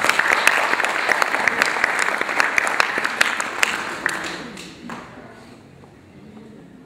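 Audience applause: dense clapping that dies away about four to five seconds in.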